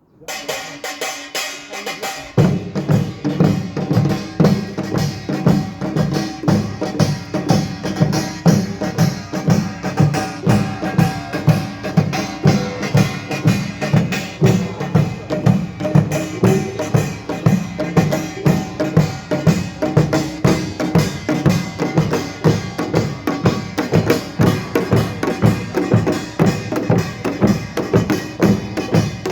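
Korean pungmul percussion ensemble striking up: dense, even drum and gong strokes in a quick beat, with the deep drums coming in about two seconds in.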